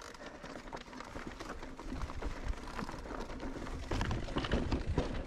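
Mountain bike rolling over a rough, stony trail: tyres crunching on stones, with the frame and chain rattling in quick irregular clicks. A low rumble builds about two seconds in as the ride gets rougher or faster.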